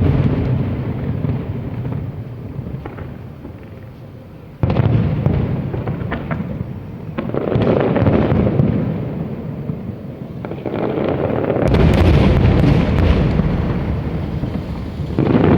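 Large aerial firework shells bursting: several heavy booms a few seconds apart, each rolling on for a while, with crackling near the end.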